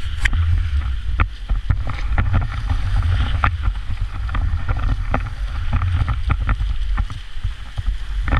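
Freeride jet ski riding through surf, heard from a camera mounted on the craft: a heavy, steady low rumble of wind buffeting the microphone, broken by frequent sharp knocks as water and the hull hit.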